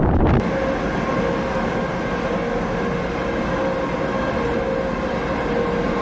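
A brief rush of wind on the microphone cuts off abruptly. A steady mechanical rush with a faint constant hum follows: the ship's ventilation and machinery droning inside its empty vehicle deck.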